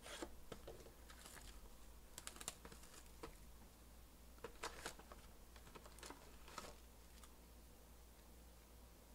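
Faint, scattered clicks and rustles of a cardboard trading-card hobby box being handled and opened and its card packs pulled out and stacked on the table.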